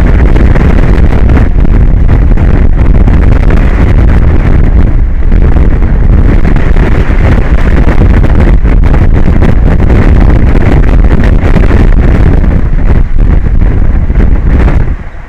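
Strong wind buffeting the microphone: a loud, steady rumble that dips briefly near the end.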